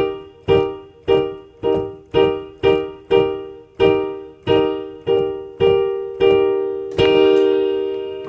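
Yamaha CVP-79 Clavinova digital piano's sampled grand-piano voice: one chord struck about a dozen times, each strike decaying, the strikes slowing down, with the last one left ringing. This is a demonstration of the damper pedal's partial (half) pedaling.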